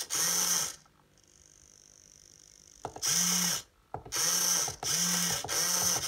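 Hobby servo motor sliding a 3D-printed rack-and-pinion door bolt, whirring in short bursts of about half a second, each rising and falling in pitch. There is one burst at the start, then a quick run of four from about three seconds in as the lock's push button is pressed again and again, with a faint high whine and a click in the gap before the run.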